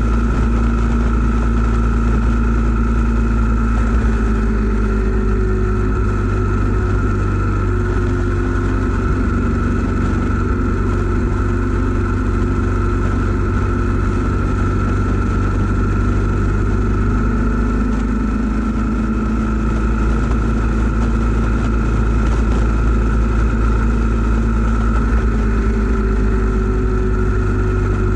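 2012 Yamaha 950 cruiser's V-twin engine running steadily at cruising speed, mixed with wind and road noise, heard from low on the bike beside the engine. The engine's pitch shifts slightly now and then with small throttle changes.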